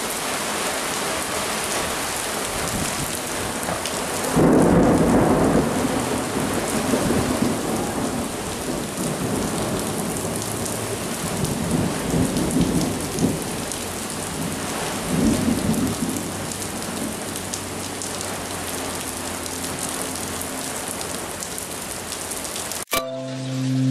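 Heavy rain pouring steadily in a thunderstorm, with a loud rumble of thunder rolling in about four seconds in and fainter rumbles later. The rain cuts off abruptly near the end into a short musical tone.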